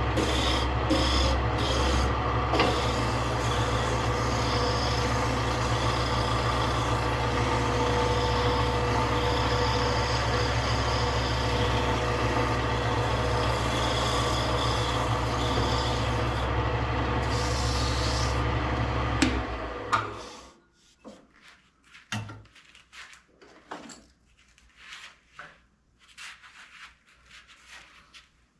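An electric woodworking power tool running with a steady hum and a rubbing, scraping sound against wood, as in sanding, for about twenty seconds, then it switches off. Afterwards come a few light taps and knocks of wood being handled.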